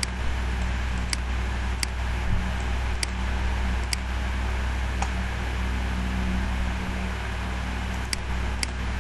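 Steady background hum and hiss with a few sharp computer-mouse clicks, five in the first four seconds and two near the end.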